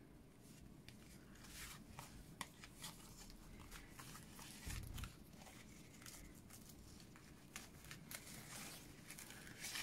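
Faint rustling and small clicks of hands handling cardstock and a strip of gold ribbon on a craft mat, with a low bump about five seconds in.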